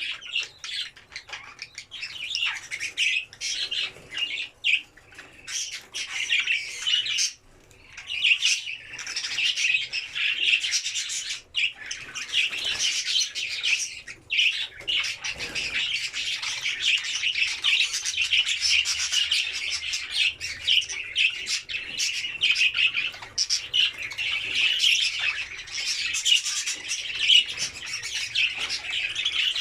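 Several budgerigars chattering together: many overlapping chirps and warbles, almost unbroken, with a few brief pauses in the first fifteen seconds.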